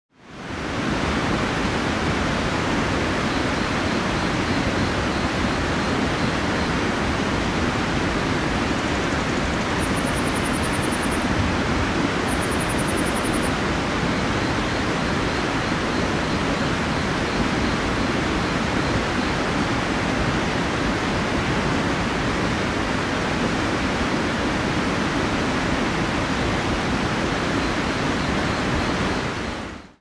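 River water rushing over rocks in a shallow, rocky crossing: a steady, full rush of flowing water that fades in at the start and out at the end. Two brief high trills sound over it about ten and twelve seconds in.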